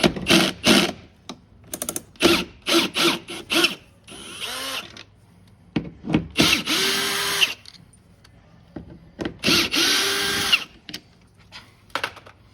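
Cordless drill/driver backing out screws: a string of short trigger blips, then two longer runs of about a second each, the motor spinning up and winding down.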